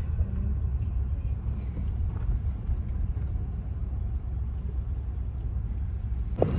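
Steady low rumble with no distinct events over it.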